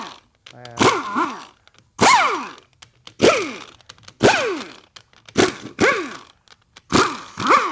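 A hand-held power ratchet run in about eight short bursts, roughly one a second, as bolts come out of a transmission case. Each burst starts sharply with a hiss, and its whine falls as the tool spins down.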